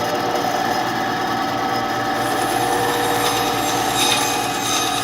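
Band saw running steadily, its blade cutting into the plug head of a thick power cord, with a steady motor hum and rougher cutting noise joining about three seconds in.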